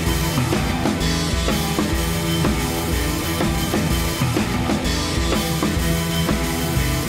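Music with a steady drum-kit beat.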